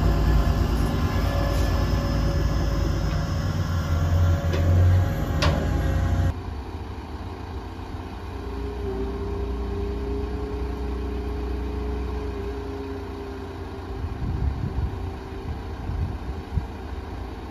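Large engines idling steadily: loud with several held tones for about six seconds, then after an abrupt change a quieter steady engine hum, with a few knocks near the end.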